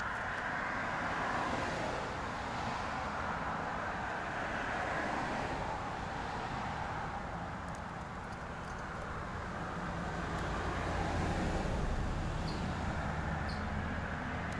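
Background road traffic, a rushing noise that swells and fades over several seconds over a low steady hum, with a few faint small clicks near the end.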